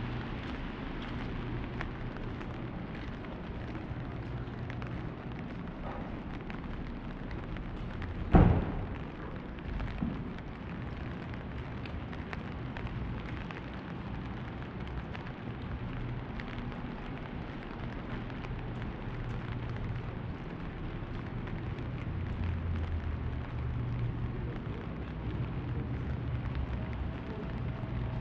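Rainy city street ambience: a steady hiss with a low hum underneath. About eight seconds in comes one loud thump, and a smaller one follows about two seconds later.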